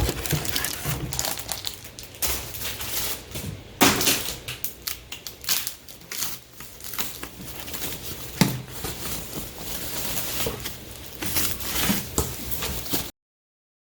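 Packaging being handled during an unboxing: continuous crinkling and rustling with many small clicks. Louder knocks come about four seconds in and again about eight and a half seconds in, and the sound cuts off abruptly near the end.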